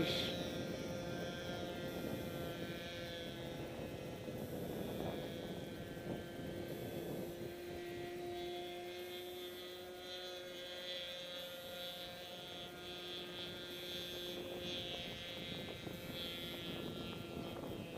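Lazer 200 RC model plane's motor running steadily as it flies at a distance, a humming tone that shifts a little in pitch now and then.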